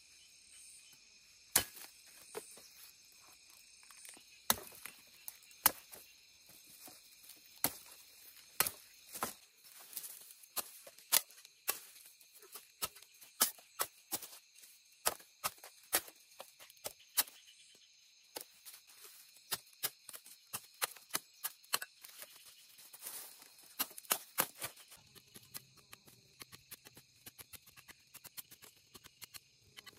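A machete chopping sugarcane stalks, cutting seed cane into lengths for planting: dozens of sharp, irregular chops that thin out near the end. Insects drone steadily behind.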